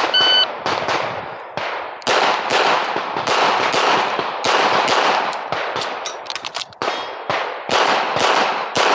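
A shot timer's start beep, then a CZ Accu-Shadow 2 9mm pistol fired in fast strings of shots, with short breaks between strings.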